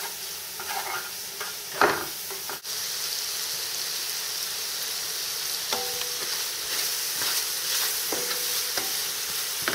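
Diced bacon, carrots and spring onions sizzling in oil in a frying pan while being stirred, with a steady frying hiss and the scattered scrapes and knocks of the utensil against the pan.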